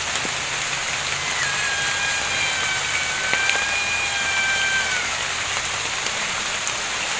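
Steady heavy rain. About a second in, an unseen animal gives one long, high call. It rises briefly, then holds a nearly level pitch with a slight dip for about three and a half seconds. It is the creature whose cry is likened to a cat's or a leopard's.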